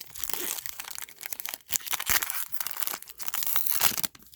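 Crinkling of a trading card pack's wrapper being handled and torn open, a dense run of crackles that dies away about four seconds in.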